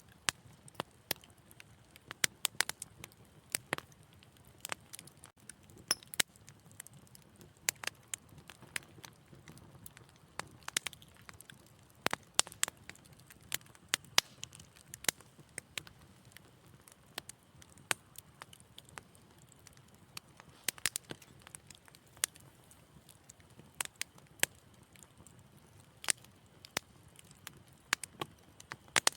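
Wood fire crackling: irregular sharp pops and snaps over a low, steady hiss of burning.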